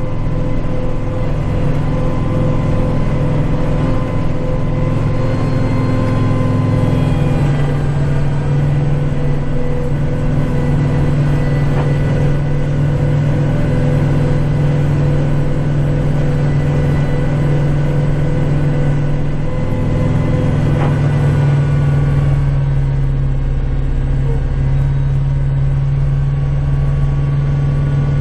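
Kubota tractor's diesel engine running steadily under work while clearing snow, its pitch shifting a few times as the engine speed changes.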